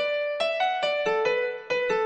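Karaoke guide melody: the vocal line played one note at a time on a piano-like keyboard tone. About nine short notes step up and then back down, each striking sharply and fading.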